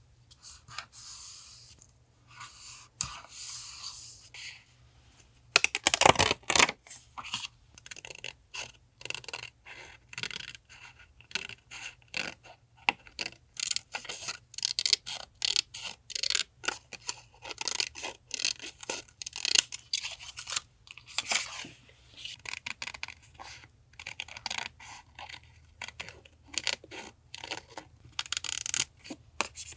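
Paper being handled during collage journaling: a dense run of short scratching and scraping strokes as paper pieces and sticker sheets are rubbed, torn and pressed down, with a louder burst about six seconds in.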